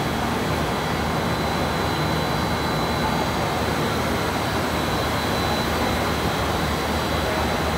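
Three-layer blown film co-extrusion line running, a steady machinery and blower noise with a low hum and a thin high whine held over it.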